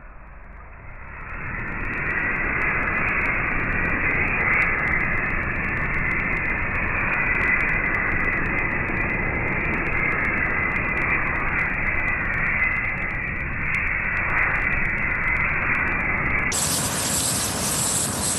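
Air from a bellows rushing into a campfire, heard as a steady, muffled roar that builds about a second in, with a faint whistling tone in it. Near the end it gives way suddenly to a brighter hiss.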